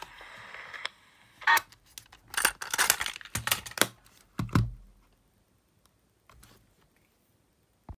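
Small knocks and clicks of a Sony TCM-450 cassette recorder's metal-and-plastic casing being handled in the hands and turned over. There are about a dozen of them over some three seconds, with the loudest near the start and near the end.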